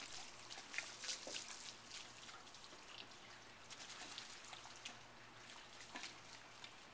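Faint, scattered drips and patters of water falling from a soaked retriever's coat onto brick paving and grass, a little busier near the start.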